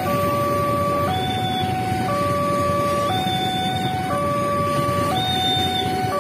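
Level crossing's electronic warning alarm sounding a two-tone signal, switching between a lower and a higher tone about once a second, which marks that the crossing is closed for a train. Under it, the steady rumble of a passenger train running past over the crossing.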